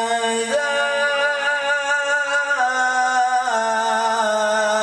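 A qari's voice in melodic Quran recitation, drawing out one long ornamented note. The note steps to a new pitch about half a second in, rises about two and a half seconds in, and drops again about a second later.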